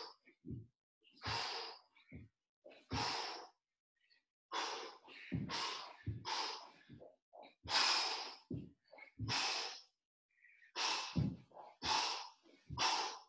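A man breathing hard through plank jumps, with a forceful rushing exhale about every second or two, and short soft thuds in between as his feet land on the wooden floor.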